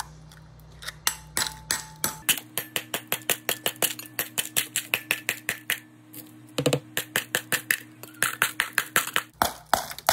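Metal spoon stirring a pitcher of pineapple drink, clinking against the plastic sides in a quick, even run of about four or five clinks a second.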